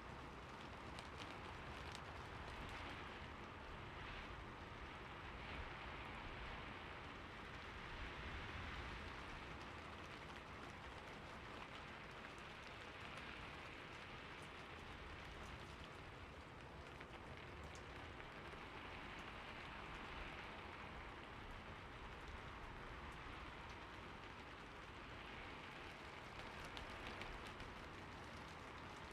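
Steady rain falling, with many small drops ticking on surfaces.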